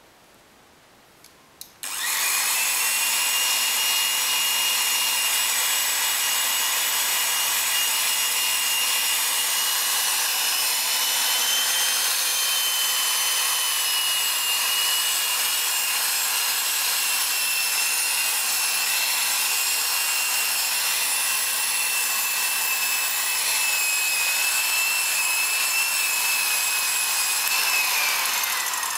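Rotary polisher with a foam buffing pad running steadily with a high whine, buffing polishing compound on a wooden car interior trim panel. It starts about two seconds in, and near the end the whine falls in pitch as the polisher spins down.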